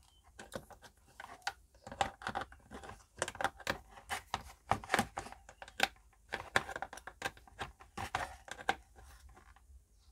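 Irregular small clicks and ticks of an adjustable spanner fitting onto and turning the mounting nut of a volume potentiometer, tightening it into a plastic radio case.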